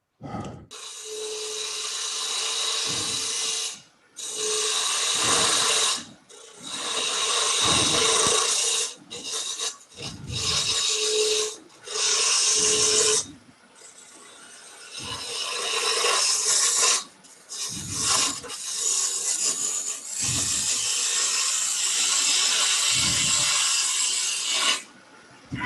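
Turning tool cutting a spinning wooden pepper grinder blank on a lathe: a series of hissing cuts, each one to three seconds long with short breaks between, as the top is shaped into a ball.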